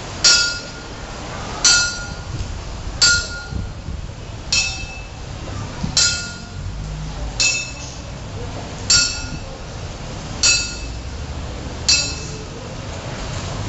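A metal rod struck against a tiled floor at a slow, steady pace, about once every second and a half, each strike a sharp clink with a brief metallic ring. Nine strikes, stopping shortly before the end.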